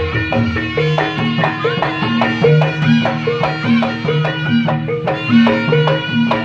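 Traditional folk music with a steady percussive beat and repeating pitched melody notes.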